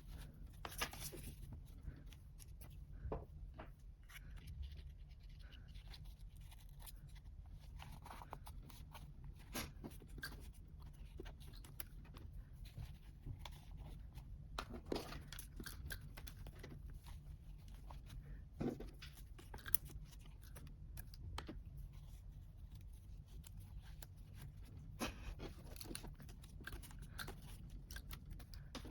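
Paper and stickers being handled by hand for a journal collage: scattered rustling and crinkling with light taps and clicks, over a low steady hum.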